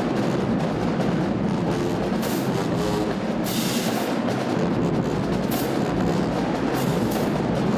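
Loud drum-driven music, with percussion to the fore and short bursts of high, crash-like sound a few times.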